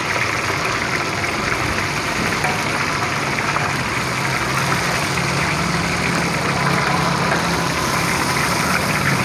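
Fish deep-frying in a large iron karahi of hot oil: loud, steady sizzling and bubbling. A low steady hum sits under it in the second half.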